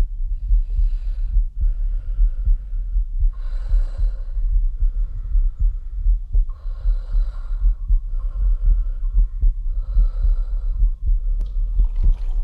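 Breathing sound effect in the music video's soundtrack, one loud breath about every one and a half seconds, over a fast, thudding heartbeat; the heartbeat and breathing are building up.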